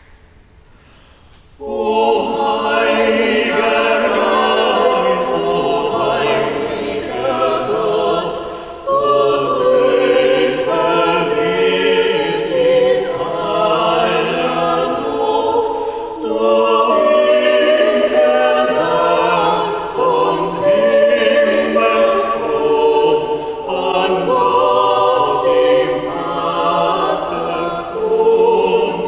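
Small mixed vocal ensemble of women and men singing a sacred choral piece, beginning about two seconds in, in a large church.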